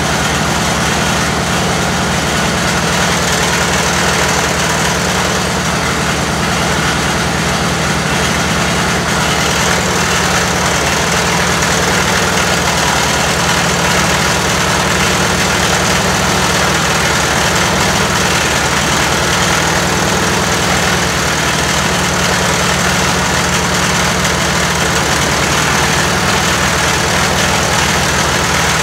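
Briggs & Stratton 20HP Intek V-Twin engine running steadily and evenly just after a rebuild with new pushrods. It is running smoothly, with no sign of a valve-train fault.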